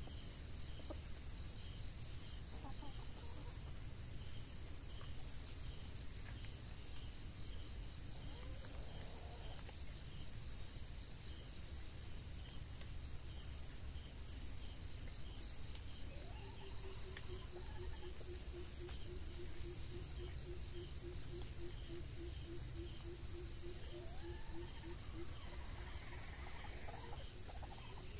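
Steady, high-pitched drone of crickets and other insects, with faint calls of red junglefowl now and then. A low, rapid pulsing call joins from about the middle for several seconds.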